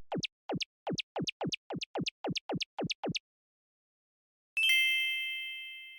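Edited-in sound effects: a quick run of about a dozen falling electronic sweeps, roughly four a second, then a single chime struck once and ringing out.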